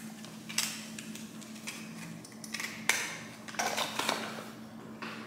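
Hands handling small packaging and products: several short rustles of cardboard and paper with a few light clicks and knocks, over a steady low hum.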